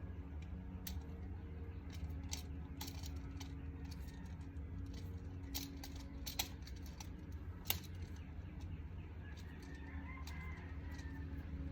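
Scattered small metallic clicks and clinks from handling the outlet, its screws and the wiring, over a steady low hum.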